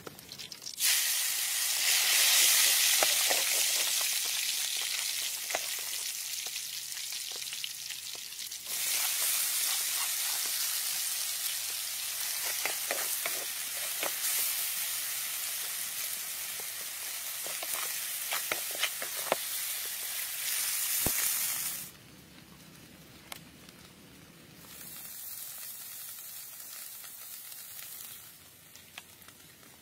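Red chilies and garlic sizzling in hot oil in a pan, starting suddenly about a second in, with the clicks of stirring through the middle; the frying cuts off about 22 seconds in.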